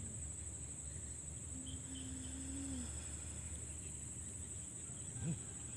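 Steady, high-pitched insect chorus from the swampy grass, one unbroken shrill tone. A low hum comes in for about a second, starting about one and a half seconds in.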